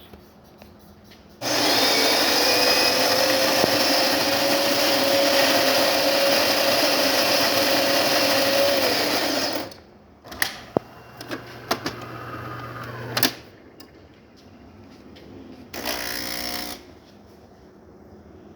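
DeLonghi Magnifica bean-to-cup espresso machine grinding beans in its built-in burr grinder: a loud steady whirr for about eight seconds that stops suddenly. It is followed by a quieter low hum with clicks as the machine starts the shot, and a short buzz near the end.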